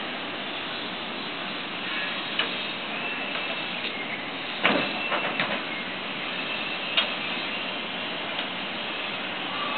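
Steady rushing background noise with a few sharp clicks: one about two and a half seconds in, a quick cluster about five seconds in that is the loudest thing here, and another about seven seconds in.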